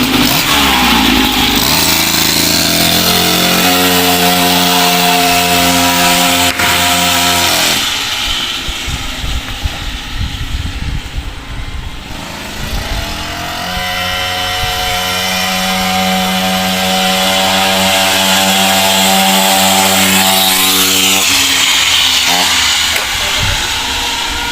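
49cc two-stroke stand-up scooter engine breathing through a tuned expansion pipe with a spark arrester fitted, revving up and holding high revs twice, dropping back to a lower rasp in between and falling off again near the end.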